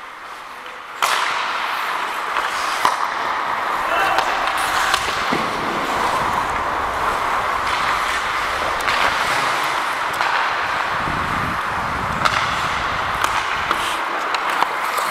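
Ice hockey play heard from the ice: a steady scrape and hiss of skate blades, louder from about a second in, with sharp clacks of sticks and puck scattered throughout and players' voices.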